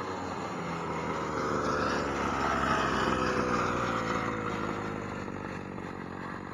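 Primal RC Raminator 1/5-scale monster truck's two-stroke gas engine running under throttle as the truck drives along the road; it grows louder about two to three seconds in, then fades with its pitch falling as the truck moves away.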